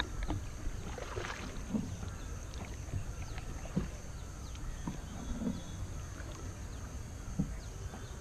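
Small rowboat being paddled across calm lake water: a regular stroke of the oar or paddle with a short knock and splash about every two seconds.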